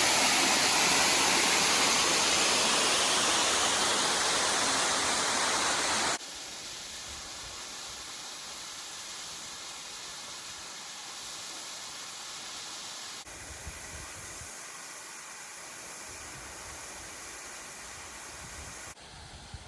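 Upper Butakovsky waterfall rushing: a steady roar of falling water, loud at first, then dropping abruptly to a much quieter rush about six seconds in, with another sudden step in level about halfway through and again just before the end.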